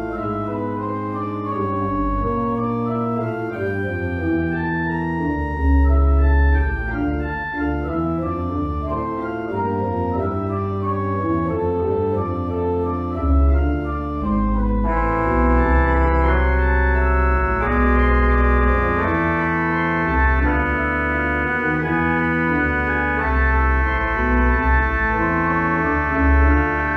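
Church organ playing the postlude: sustained chords over deep pedal notes, changing every second or so. About halfway through the sound grows fuller and brighter as more stops come in.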